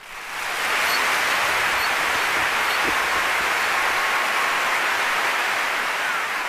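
Audience applause, fading in over the first second and then holding steady.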